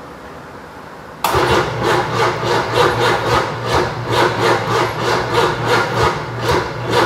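Starter cranking the 6.2L Detroit diesel V8 of a 1990 Chevy pickup, kicking in abruptly about a second in: a steady starter whir with an even rhythm of compression pulses, not catching. It is cranking on jumper cables because of a dead battery.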